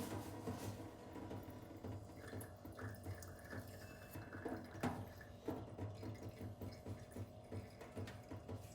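Faint water dripping with scattered small ticks just after a tap has been running, over a low steady hum.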